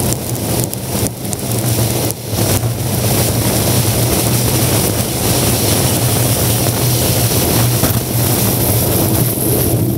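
Car driving at highway speed: a steady drone of engine and tyre noise, with wind buffeting the microphone and scattered crackles. It grows louder about two seconds in and then holds steady.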